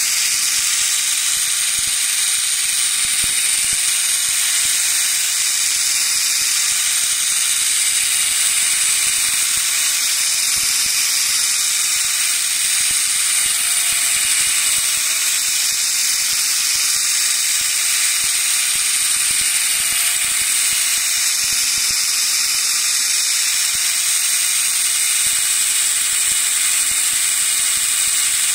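Mini belt grinder running steadily, its abrasive belt grinding a flat steel bar pressed against the platen: a constant loud, high hiss with a faint steady whine underneath.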